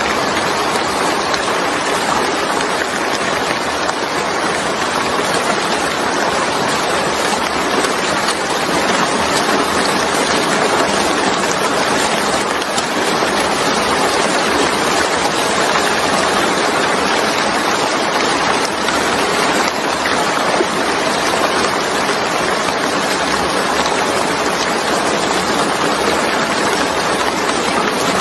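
Steady rain falling on a wet surface with standing water, an even hiss of drops that holds level throughout.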